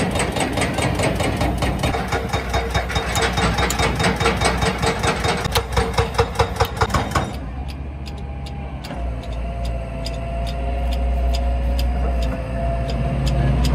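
An engine running at idle, with a fast, even ticking over the first seven seconds. After a cut, it becomes a steadier low hum with a wavering whine and fewer ticks.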